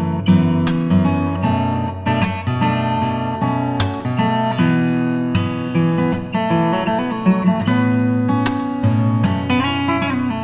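Background music on acoustic guitar, strummed and plucked chords in a steady rhythm.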